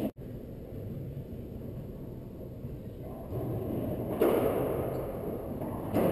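Racquetball shots ringing in an enclosed court: a sharp crack of the ball off the racquet and walls about four seconds in, with an echo after it, and another hit near the end.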